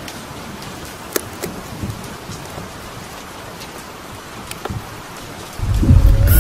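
Steady rain falling, with scattered sharp drop taps. About five and a half seconds in it gives way abruptly to the loud low rumble of a car driving, heard from inside the cabin.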